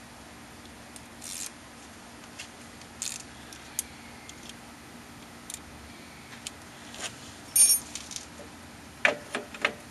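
Small metal brake parts and hand tools being handled: scattered light clicks and scrapes, one brief metallic ring a little past the middle and a quick run of clicks near the end, over a steady low hum.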